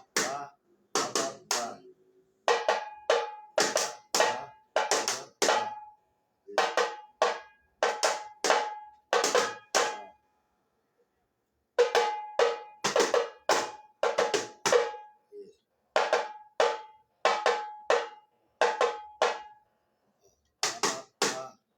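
Tamborim struck with a stick, playing the teleco-teco samba beat: sharp, dry strikes in quick repeating phrases, some with a short ringing tone. The playing stops briefly about ten seconds in and again near the end.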